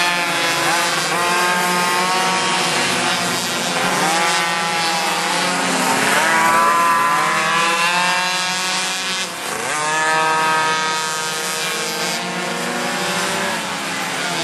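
Several Chinese liquid-cooled minimoto two-stroke engines racing, their high-pitched revs overlapping and rising and falling as the bikes accelerate and brake around the circuit.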